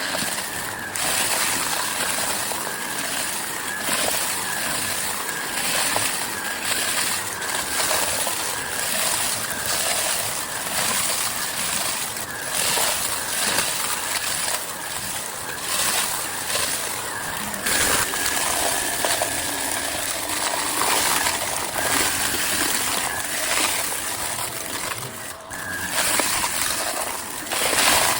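Vacuum cleaner running steadily with a constant motor whine, while crunchy debris crackles and rattles as it is sucked up.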